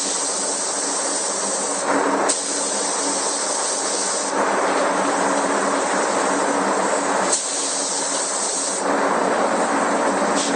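Air-fed paint spray gun hissing continuously as paint is sprayed, its hiss shifting in spells every couple of seconds, over a steady low hum.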